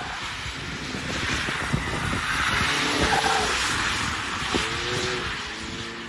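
Mazda ND Roadster NR-A with its 1.5-litre four-cylinder engine running hard as it slides through a cone course, its tyres hissing on wet asphalt. The hiss swells from about a second in and fades near the end.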